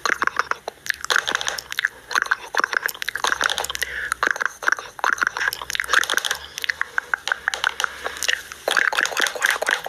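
Dense, irregular crunching clicks with a few brief pauses.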